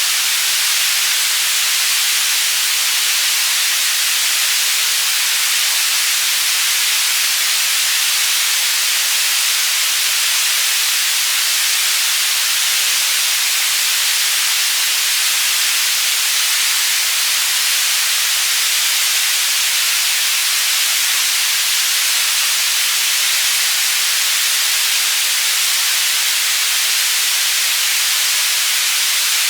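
Synthetic white noise for tinnitus masking, panned between the left and right channels: a steady, even, bright hiss with little bass.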